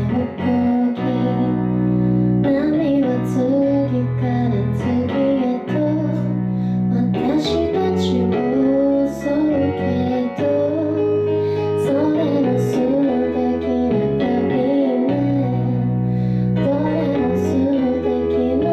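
A woman singing live into a microphone over instrumental accompaniment.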